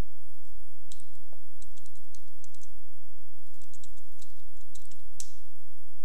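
Computer keyboard keys clicking in short, irregular taps, a dozen or so, with one louder click about five seconds in, over a steady low hum.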